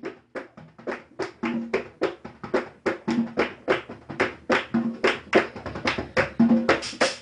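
Carnival music opening on percussion alone: drums beating a quick, steady rhythm, growing louder over the first few seconds.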